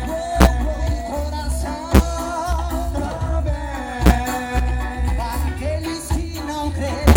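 Live roots reggae band playing: a heavy bass line under a wavering sung melody, with a sharp drum hit about every two seconds.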